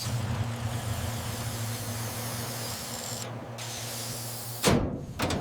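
Refrigerator compressor running with a steady low hum and a hiss of gas over it. The hum cuts off about four and a half seconds in with a loud sudden thump.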